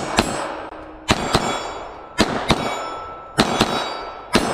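Wide-body IJ70-17AH Makarov-pattern pistol fired in slow, steady shots about a second apart, four in all. Each shot is followed about a quarter second later by the clang of a steel plate target being hit, which rings on briefly.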